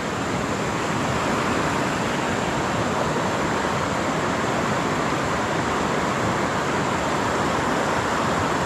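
River rapids rushing steadily, an even hiss of fast water over rocks.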